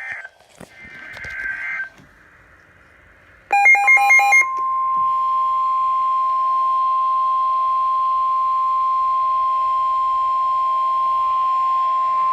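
NOAA Weather Radio alert: about a second of rapid, chopped data beeps at several pitches, then the steady 1050 Hz warning alarm tone held loud for about nine seconds, the signal that a new warning broadcast follows.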